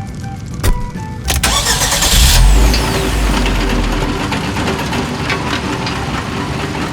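Excavator engine starting with a click and then a loud, low rumble about a second and a half in, settling into steady running.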